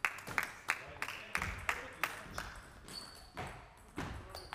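Table tennis rally: the plastic ball clicks off the bats and bounces on the table in quick succession, about three hits a second, with a few duller thuds mixed in.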